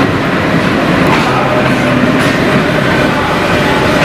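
WDM-class diesel locomotive hauling a passenger train past along a station platform: the diesel engine running steadily under the noise of wheels on rails.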